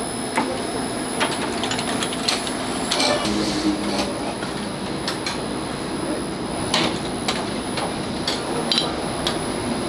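Automatic walnut-cake baking machine running: its cast-iron molds clack and knock irregularly as they move along the conveyor, over a steady mechanical hum.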